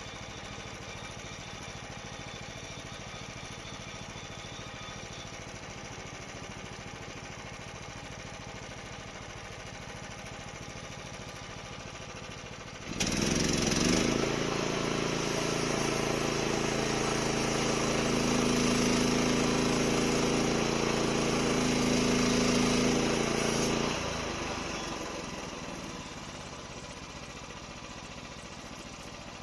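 Portable sawmill engine running steadily; about 13 seconds in it suddenly gets much louder, with a hissing, whining cut on top, for about ten seconds, then drops back to its steady running.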